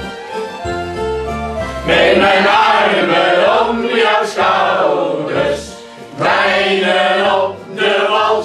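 Dutch carnival song sung by a small group together over a backing track with a steady bass line; the voices come in about two seconds in, in phrases with short gaps between lines.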